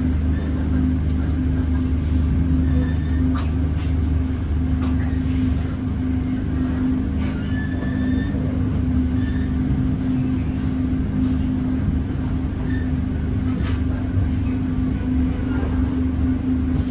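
Steady low rumble and hum inside a KTM Express Rakyat passenger coach as the train runs, with faint clicks and rattles now and then.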